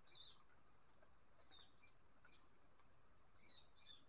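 Squirrel calling to its companions: about six faint, short, high chirps, mostly in pairs, each dropping slightly in pitch.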